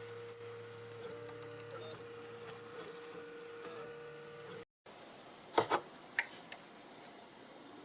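Ultimaker 3D printer printing, its stepper motors whining in steady tones that step in pitch as the print head moves. About four and a half seconds in the sound cuts off, followed by a few sharp clicks and knocks.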